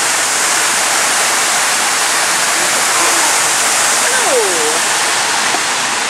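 Waterfall plunging down a rock cliff into the sea: a steady, loud rush of falling water.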